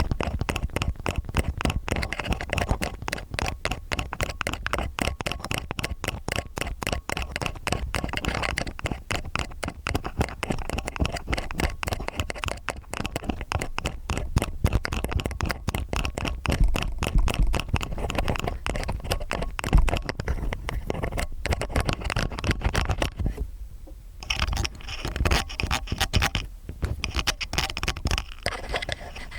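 Stainless steel ear picks scraping and scratching in quick, close strokes for ASMR ear cleaning, with a couple of short pauses near the end.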